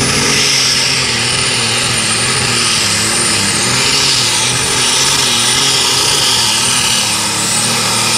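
John Deere light super stock pulling tractor's engine running hard at high revs under full load during a pull, its pitch wavering slightly, with a high, steady whistle over it.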